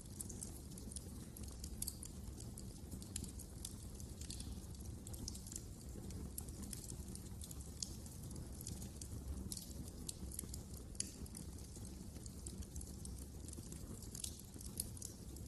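Wood fire crackling in a fireplace: many small, irregular snaps and pops over a low, steady rumble of the burning fire.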